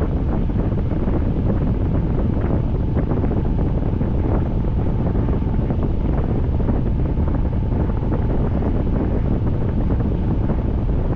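Wind rumbling on the microphone during steady rain, with many small drops ticking close by.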